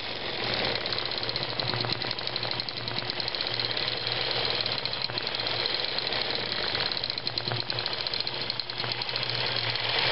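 Long-arm quilting machine stitching continuously at a speed setting of about 5. The needle makes a fast, even rattle of stitches over a steady motor hum.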